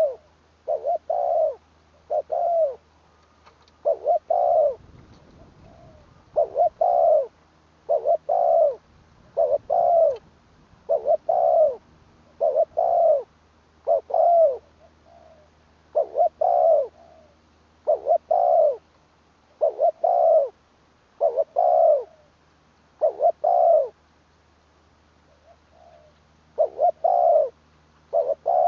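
Spotted dove cooing: short coo phrases of two or three notes, repeated every couple of seconds with a brief pause near the end.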